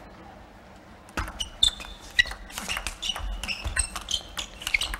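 Table tennis rally: the ball clicks off the bats and the table in quick, irregular succession from about a second in, mixed with short, high squeaks of the players' shoes on the court floor.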